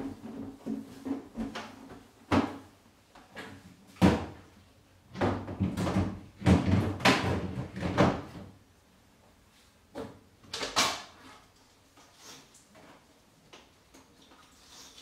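A string of knocks and clunks from doors and drawers being opened and shut, with items handled in between, over the first ten seconds or so. After that only a few faint clicks.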